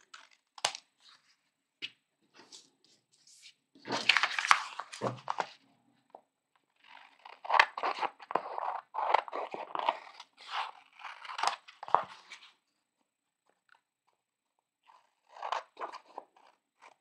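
Scissors cutting through printed book pages: spells of crisp snipping and paper crackle, with breaks between them.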